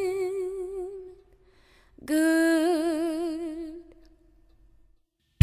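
A solo singing voice, unaccompanied, holds a long note with vibrato that fades away. After a short pause a second held note with vibrato comes in and fades out in turn.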